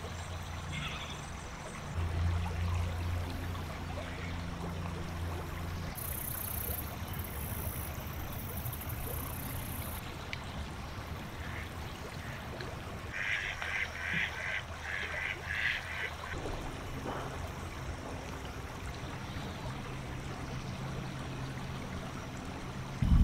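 A flock of geese on the water calling: a quick run of about eight short honks in the middle, with a couple of fainter calls near the start, over a steady low rumble.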